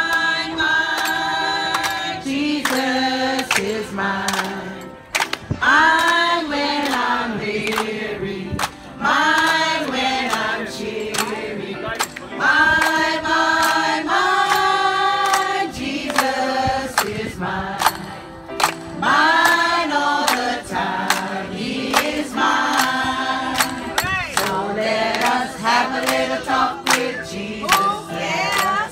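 A group of people singing a song together in chorus.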